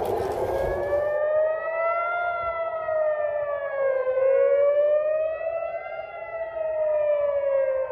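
Civil-defence air-raid sirens wailing, warning of an incoming missile and drone attack. At least two sirens rise and fall slowly and out of step with one another, each cycle taking about four seconds. A rushing noise underneath stops about a second in.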